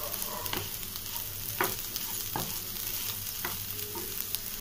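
Sliced bitter gourd and onions frying in oil in a nonstick pan, sizzling steadily while a spatula stirs the spice powder through them, with a few light scrapes and clicks of the spatula against the pan.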